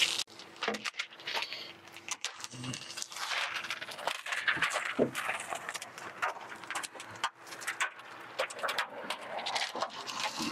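Plastic window film and its peeled-off liner crinkling and rustling as a squeegee is drawn over the film on the glass, a run of small irregular crackles.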